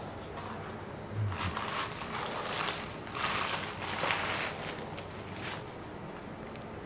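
Clear plastic wrapping crinkling and rustling as it is pulled off a small electric coffee grinder by hand, in several bursts, loudest in the middle.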